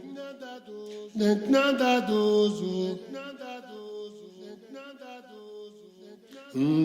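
Singing of a slow, chant-like song with long held notes, strongest in the first few seconds and softer after, with a few short percussive hits about a second in.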